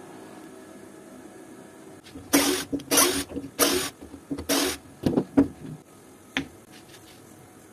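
Handheld power drill run in four short bursts, about half a second each, boring a hole into a small turned wooden disc. A few sharp knocks follow.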